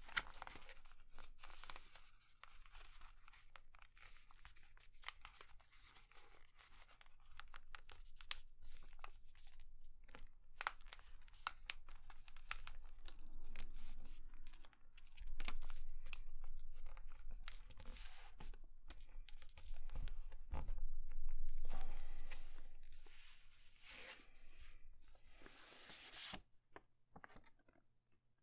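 A sheet of paper being folded and creased by hand: rustling and crinkling with sharp crackles as the folds are pressed flat. It is louder about halfway through and again around two-thirds of the way, and fades near the end.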